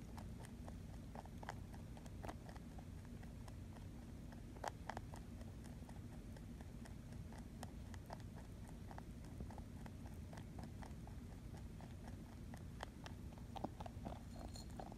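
A rabbit crunching dry food pellets from a ceramic bowl, in scattered sharp crunches that thin out for several seconds in the middle and pick up again near the end. A faint steady low hum runs underneath.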